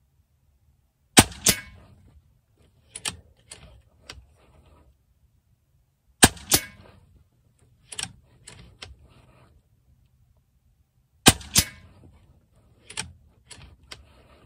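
Daystate Alpha Wolf Safari HP .22 PCP air rifle with a suppressor fitted, fired three times about five seconds apart. Each shot is a sharp crack followed a fraction of a second later by a second crack, then a few lighter metallic clicks as the action is cycled for the next pellet.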